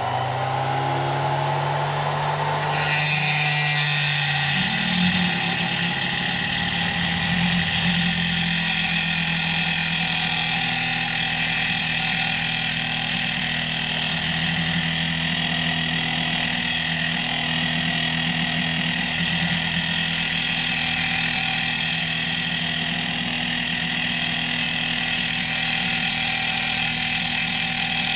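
Dremel rotary tool running with a thin diamond cutting disc. About three seconds in, the disc bites into the metal cab, adding a steady high-pitched grinding hiss over the motor's whine.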